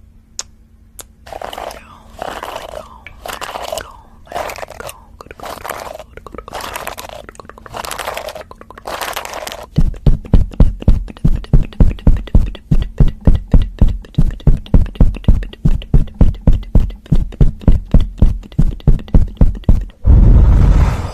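Close-miked ASMR triggers on the microphone. First come slow, scratchy brushing strokes against it, about one a second. About halfway through these give way to loud, rapid tapping thumps, about four a second, and near the end a brief heavy rubbing rumble.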